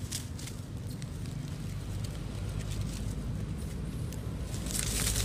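Dry leaf litter rustling and crackling as macaques move and handle sticks, in scattered small crackles with a louder rustle near the end, over a steady low background rumble.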